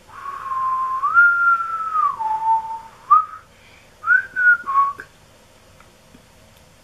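A woman whistling a slow tune: long held notes that step up, then down, followed by a few short notes, stopping about five seconds in.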